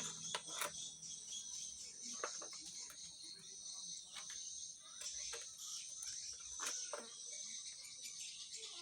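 Steady, high-pitched insect chorus, crickets or similar, with scattered sharp clicks and knocks through it.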